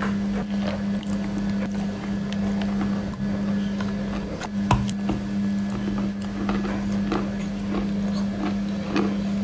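Close-up crunching and chewing of a cookie coated in chocolate cream: an irregular run of crisp crackles, with a sharper crunch about halfway through, over a steady low hum.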